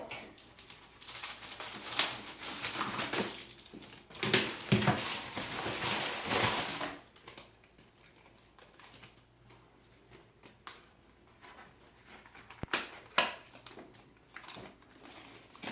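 A package being opened by hand: packaging crinkling and tearing in several bursts for about seven seconds, then quieter handling with a few scattered clicks and taps.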